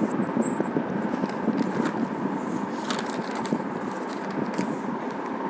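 Steady background hiss picked up by an earphone microphone on a video call, with a few faint clicks.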